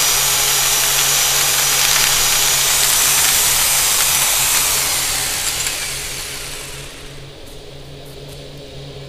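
Corded electric drill running and boring into a wall, a loud steady drilling noise that fades away about five to seven seconds in, leaving a low steady hum.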